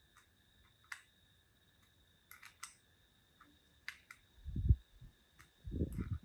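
Handling noise from a vintage film camera: scattered small sharp clicks and taps, with a dull thud about four and a half seconds in and a couple more near the end.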